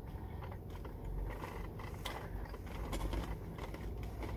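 Steady low rumble of a car cabin, with scattered light clicks and rustles of a crinkly plastic snack packet being handled.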